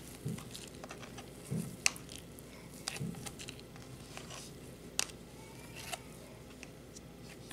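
A plastic scoop digging and scraping through a cup of crumbly, granular toy filling: faint gritty crunching, with a few sharp plastic clicks and soft low thumps.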